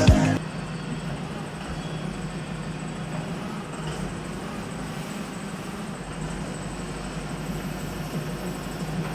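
Backhoe loader's engine running steadily, a low even rumble. A song cuts off right at the start.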